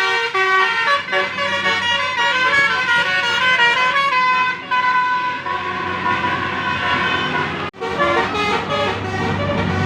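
Basuri-type telolet horn playing a quick melody of stepped multi-note tones, over a steady low hum. A little before the end the sound breaks off for an instant and the horn tones start again.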